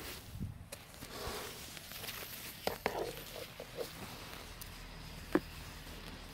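A snow brush sweeping snow off a car window: soft scraping swishes of bristles through the snow, with a few sharp clicks, the loudest a little past five seconds in.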